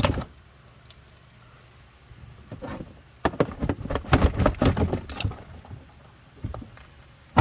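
Plastic push-pin trim clips and an inner fender-liner panel being pried loose and handled: a sharp click at the start, a quiet pause, then a couple of seconds of irregular clicking and plastic rattling, with a few more clicks near the end.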